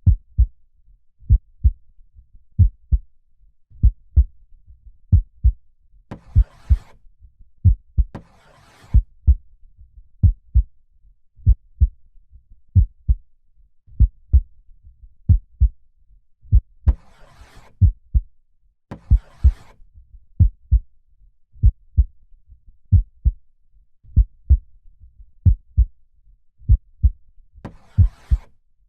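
Slow, steady heartbeat, a low lub-dub double thump about every 1.35 seconds, roughly 44 beats a minute. Soft breaths drawn in and let out over it, about every eleven seconds.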